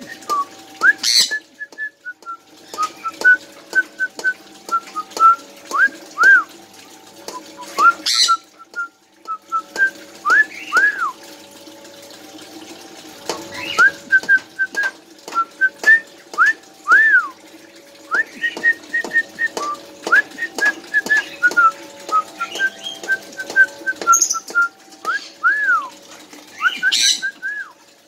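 Caged pet parrots whistling a tune of short repeated notes and rising-and-falling whistles, broken by a shrill screech about five times, as a bird practises its singing.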